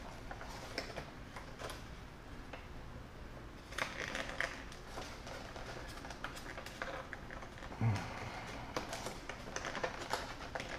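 Fingers working a plastic power connector and its wires inside a model submarine's hull: faint scattered clicks and rustles, with a short low sound about eight seconds in.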